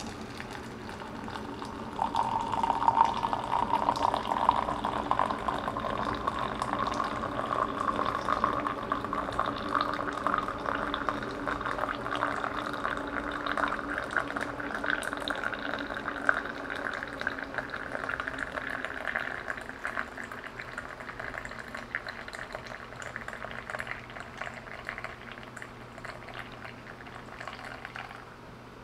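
A thin stream of water poured into a glass beaker of ground ginseng. The splashing starts about two seconds in and rises slowly in pitch as the glass fills, then fades near the end.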